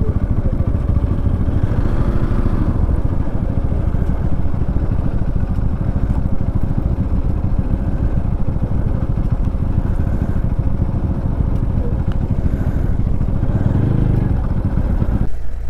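Motorcycle engines idling together in a steady low rumble. The rumble drops off abruptly just before the end.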